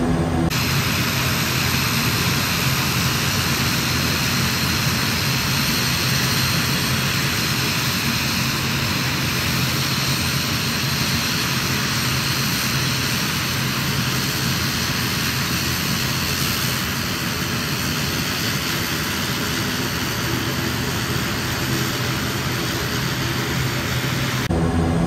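ATR 72 turboprop airliner noise: a steady, even rush of engine and air noise with a faint thin high whine.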